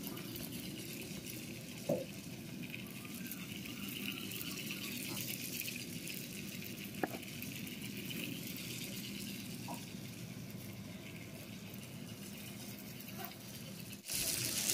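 Toy Thomas train's small battery-powered electric motor whirring steadily as the engine runs around a plastic track, with a couple of sharp clicks along the way.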